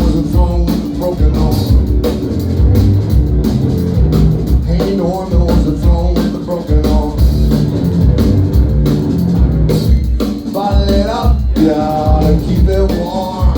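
Live rock band playing, with a steady drum beat and a heavy bass line. A melodic line rises and falls over it near the end.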